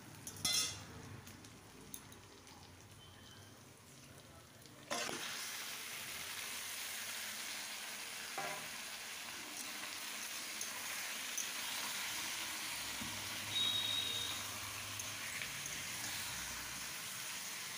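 Marinated chicken pieces going into hot mustard oil and fried onions in a kadai. The sizzling starts suddenly about five seconds in and then continues steadily while a metal spatula stirs. Before that there is a spatula clatter and quieter frying of the onions.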